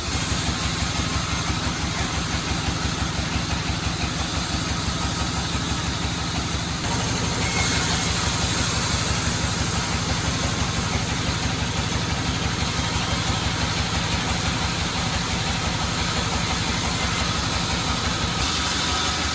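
Sawmill's engine running steadily with an even, rapid firing rhythm; the sound shifts slightly about seven seconds in and again near the end.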